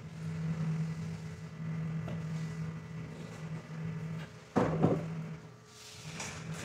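Rubber floor squeegee dragged over wet tile, its blade giving a steady low hum that breaks off about five seconds in. A sharp knock comes about four and a half seconds in, and a brief swish follows near the end.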